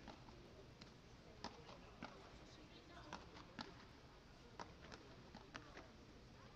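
Beach tennis rally: the ball struck back and forth with solid paddle rackets, heard as faint, sharp pocks about seven times, irregularly spaced.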